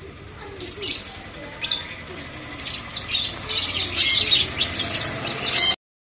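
Aviary parrots, sun conures among them, calling with short shrill chirps and screeches. The calls are sparse at first, come thick and fast from about halfway, and cut off abruptly near the end.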